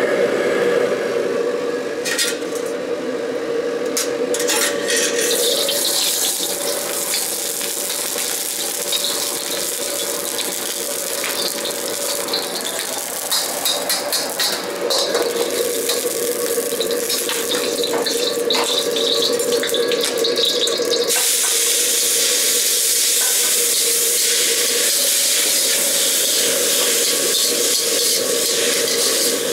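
Commercial gas wok burner running with a steady roar and hiss, while a metal ladle clinks and scrapes against a carbon-steel wok. The hiss grows louder and brighter about two-thirds of the way through.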